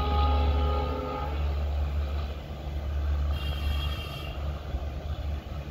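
ALCO WDG-3A diesel locomotive's deep engine rumble slowly fading as the train pulls away, with a few steady whining tones that stop after about a second. A short high chirp comes about three and a half seconds in.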